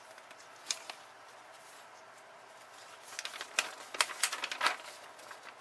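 Paper instruction sheet being unfolded and handled: a couple of soft crackles about a second in, then a flurry of sharp paper crinkles through the second half.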